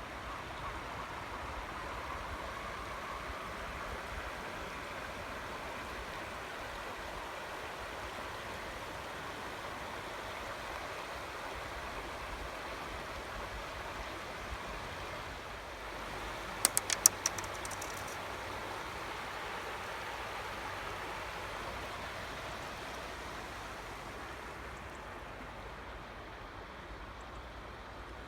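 Steady rushing noise, with a quick run of sharp clicks about seventeen seconds in.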